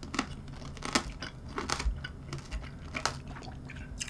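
Chewing a mouthful of tangerine tanghulu, mandarin segments in a hard candied sugar shell, the shell crunching in short, irregular cracks.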